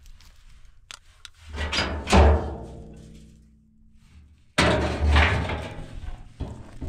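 Empty steel oil drum being tipped and knocked against stony ground, giving two hollow metallic booms that ring on. The first comes about a second and a half in, the second, sharper, just before five seconds.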